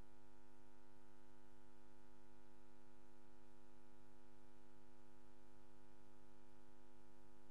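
Faint steady electrical hum: a buzz of many even tones that never changes, with nothing else sounding over it.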